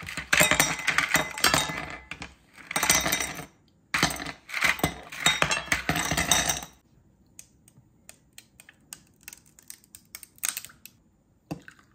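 Ice cubes clattering out of a plastic ice pack into a glass tumbler in three loud bursts over the first seven seconds, then light clicks of the ice settling in the glass.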